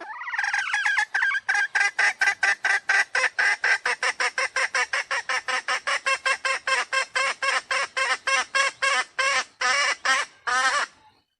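Jungle fowl lure call: a fast, even run of about forty short, rather harsh calls, roughly four a second, opening with a wavering note and ending on a slightly longer one before stopping abruptly.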